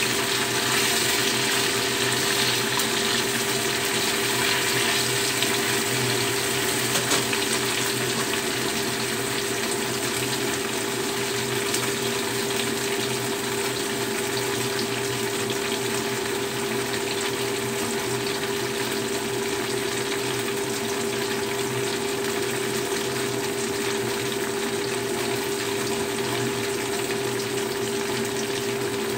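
Tofu frying in hot oil in a black wok: a steady sizzle throughout, with a steady hum underneath.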